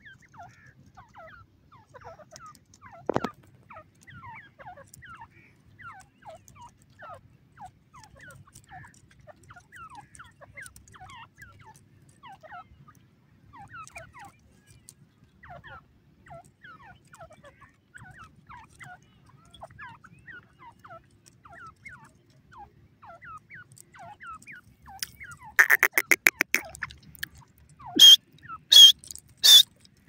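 Grey francolin calling: soft, short falling chirps come and go throughout, with a single sharp tap about three seconds in. Near the end a fast rattling run of notes leads into loud, high calls repeated evenly, three of them, about 0.7 seconds apart.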